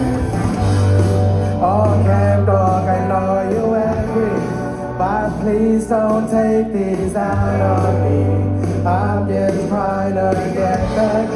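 Live rock band playing: a singer over guitar, bass and drums, heard through the concert PA from within the crowd.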